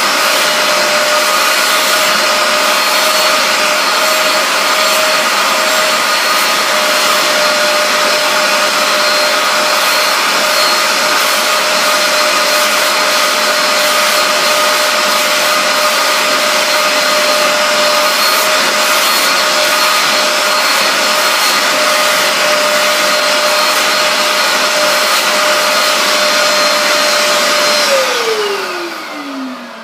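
Bissell SpotClean Pro portable carpet cleaner running: a steady suction rush with a constant whine as its hand tool sprays and vacuums a fabric headrest. Near the end the motor is switched off and winds down with a falling whine.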